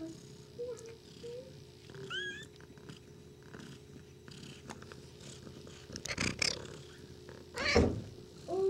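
Four-week-old RagaMuffin kittens mewing with small, short squeaks as they play, then two louder, longer cat meows, about six seconds in and near the end, the second the loudest.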